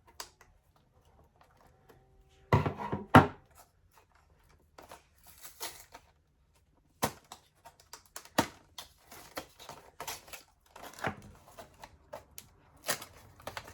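Hands opening a small cardboard toy box: scattered clicks, knocks and rustles of cardboard flaps and packaging, with two sharper knocks about three seconds in and a stretch of scraping or tearing noise a little later.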